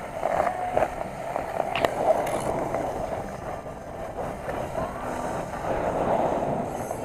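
Ice skate blades gliding and scraping on rink ice: a steady scraping hiss with a few sharp clicks about one and two seconds in.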